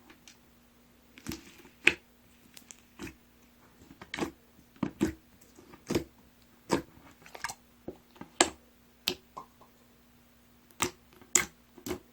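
Purple grape-berry slime being pressed and squeezed by hand, giving irregular sharp pops and clicks, roughly one or two a second, with a few louder ones.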